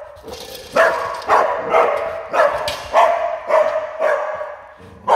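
Dog barking repeatedly, about two barks a second, each bark short and sharp.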